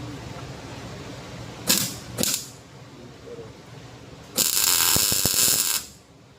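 Tack welds on a steel power steering pump bracket: two short bursts of welding arc crackle, then one longer crackling weld of about a second and a half.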